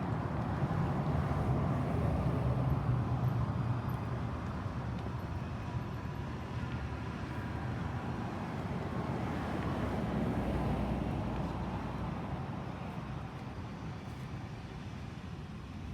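Steady outdoor rumble of road traffic, swelling about ten seconds in and easing off toward the end.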